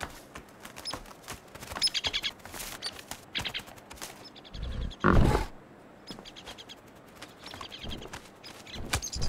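A small bird chirping in short high trills, several times, over light taps of hooves on a wooden balance beam. About five seconds in comes a louder swish with a low thud.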